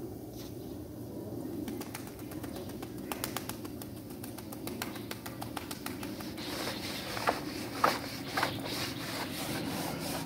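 A chattering lory bathing in water running from a garden hose onto tiles: a rapid patter of small wet clicks and splashes with the bird's own soft calls, and a few louder sharp sounds near the end.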